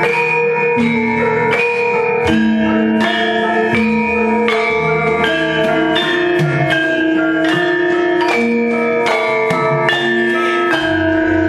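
Javanese gamelan playing wayang kulit accompaniment: bronze metallophone keys struck in an even pulse of about three notes every two seconds, each note ringing on until the next.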